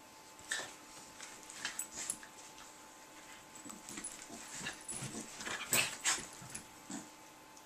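Two dogs play-wrestling, giving short whimpers and yips among brief scuffling noises, the loudest two close together about six seconds in.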